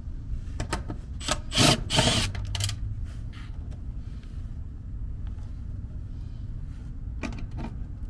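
Cordless Milwaukee FUEL driver given two short runs about a second and a half and two seconds in, loosening the mounting screws of an air-conditioner contactor, among the clatter and rubbing of hands and tools at the unit's wiring panel.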